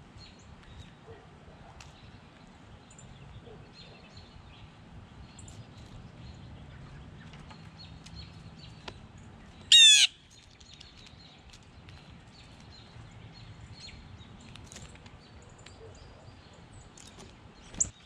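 Wild birds chirping faintly and now and then over low background noise, with one loud, short call about ten seconds in and a smaller sharp call near the end.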